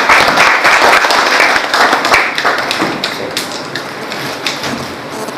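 A small gathering applauding: a dense clatter of hand claps that slowly thins and fades.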